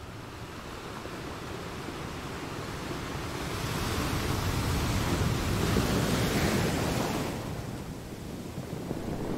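A rushing noise that swells louder toward the middle and eases off near the end.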